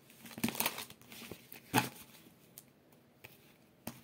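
Oracle cards being handled and shuffled: dry papery rustles and a few short card slaps, the sharpest one about two seconds in.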